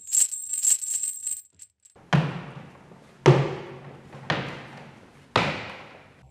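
A bright metallic jingle, like a tambourine, for about a second and a half. Then four heavy hits about a second apart, each ringing out and fading: added sound effects.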